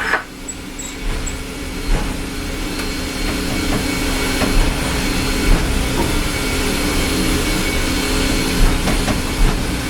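Cab noise of Canadian Pacific 2816, a 4-6-4 Hudson steam locomotive: a steady rumble and hiss with a low hum, broken by occasional knocks, growing a little louder over the first couple of seconds.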